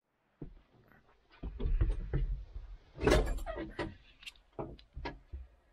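Irregular clunks, knocks and rustling of handling inside a Massey Ferguson 1105 tractor cab as someone settles in at the controls, with one sharper, louder clunk about three seconds in.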